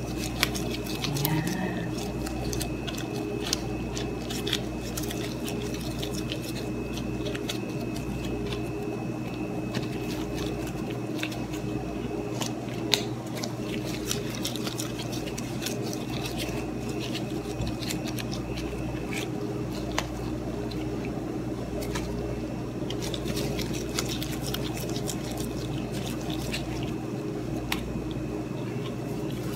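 Gloved hands pinching and rolling bread dough into balls: soft squishing with small crinkles and ticks from disposable gloves, scattered irregularly, over a steady hum.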